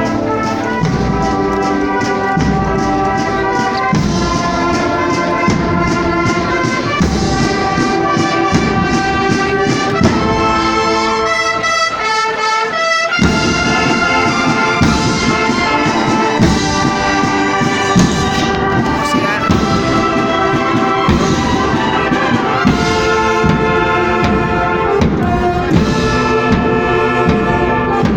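Agrupación musical, a Spanish Holy Week marching band of brass and drums, playing a processional march live. Around the middle the drums and low brass drop out for a moment, leaving the high brass alone, then the full band comes back in.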